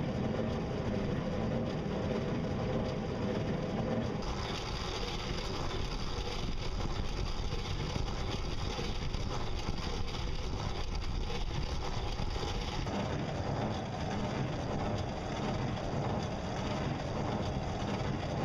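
Water rushing and splashing along the hull of a small solar/pedal-powered trimaran underway, over a steady low rumble. The sound shifts abruptly about four seconds in and again about thirteen seconds in.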